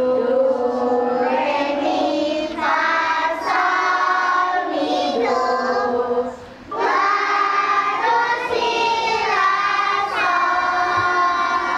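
A group of young children singing together in unison, in sung phrases with a short break about six seconds in.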